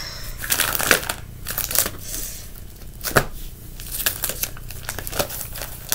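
Plastic trading-card binder sleeves crinkling and rustling as the pages are handled and turned, with a few sharp clicks and taps, the clearest about three seconds in.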